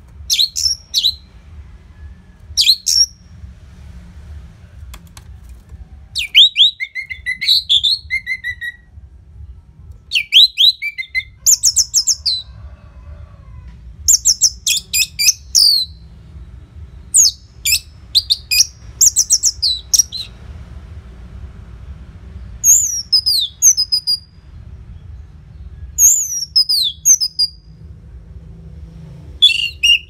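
Orange-headed thrush (anis merah) singing loudly: phrases of quick, varied whistled notes and slurs, each one to three seconds long, repeated after short pauses.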